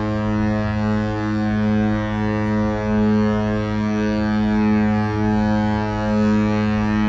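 A cruise ship's horn sounding one long, steady, deep blast at a single pitch.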